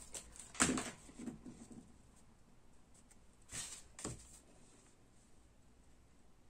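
Soft handling noises of card stock: a paper panel rustling as it is picked up and laid onto a glued card base and pressed flat, with a few brief rustles about half a second in and again around three and a half to four seconds in.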